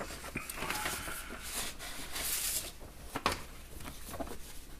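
Paper inner sleeve of a vinyl LP rustling as the record is handled and slid out, with one sharper tap about three seconds in.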